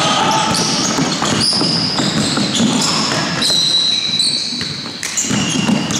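Basketball being dribbled on a hardwood court, with short high-pitched sneaker squeaks over it, in a large echoing hall.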